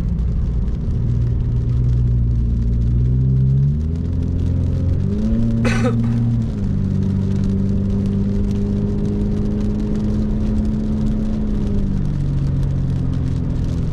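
Car engine and road noise heard from inside the cabin while driving, the engine pitch rising and dropping in steps as it speeds up and shifts. A brief sharp click comes about six seconds in.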